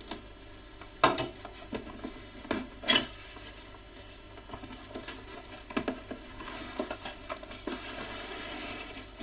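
Toy packaging being handled: scattered taps, clicks and rustles of cardboard and plastic, with sharper knocks about a second in and near three seconds.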